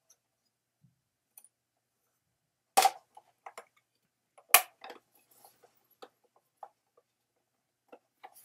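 Plastic parts of a Hasbro Plasma Series Ecto-1 toy car being handled, with two sharp snaps, about three and four and a half seconds in, among light clicks and taps.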